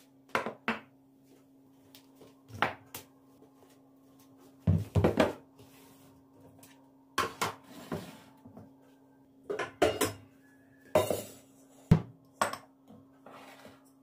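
Hard household objects being handled and set down: a series of short clinks and knocks, some in quick pairs, over a steady low hum.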